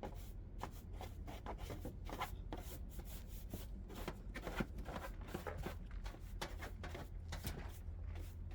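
Broom sweeping the floor of a van: irregular, scratchy brushing strokes, over a low steady hum.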